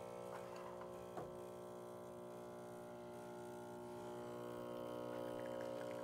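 Gaggia Anima Prestige super-automatic espresso machine's vibration pump humming steadily while it brews an espresso shot after pre-infusion, getting a little louder about four seconds in. There is a faint click about a second in.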